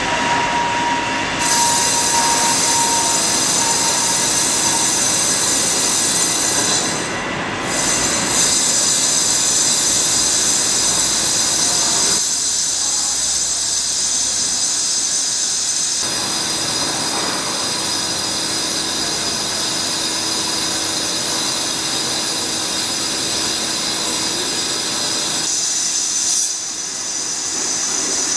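VTC60 CNC vertical lathe running with a wheel hub spinning in its chuck: a steady mechanical noise with high-pitched whining tones. The sound changes abruptly a few times.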